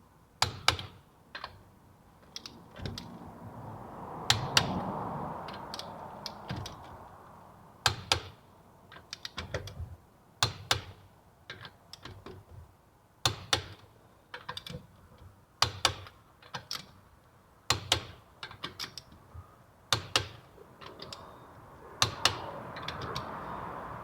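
Irregular sharp metallic clicks and clacks of hand tools and brake parts being handled, many in quick pairs or short clusters. A soft rush of noise swells about four seconds in and again near the end.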